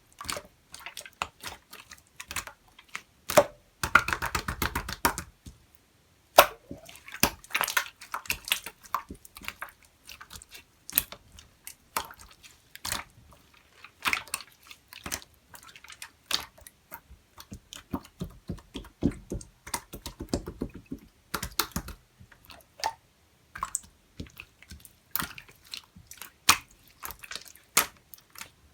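Clear slime being squished and poked by hand, giving irregular wet clicks and pops, with a few denser stretches of squelching crackle.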